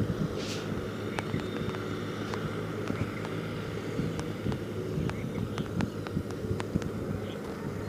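Steady low background hum with faint, irregular ticks from typing on a phone's on-screen keyboard.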